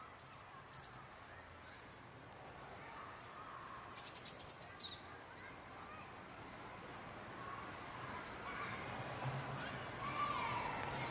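High, thin bird calls. There are a few quick chirps at the start, a fast run of notes about four seconds in that ends in a short downward sweep, and scattered single chirps after that.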